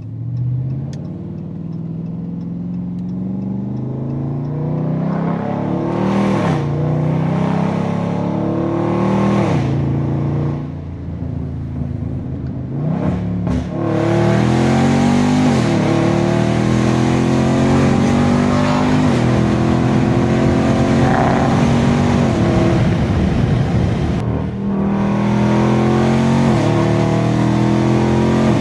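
Dodge Scat Pack's 392 (6.4-litre) HEMI V8 with a catless tuned exhaust, accelerating hard through the gears: the engine note climbs, drops back at each upshift, and climbs again, several times over. It eases off briefly twice before pulling again.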